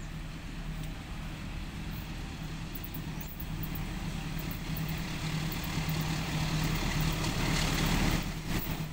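Diesel-electric locomotive engine running as the train approaches, a steady low hum that grows gradually louder as it nears.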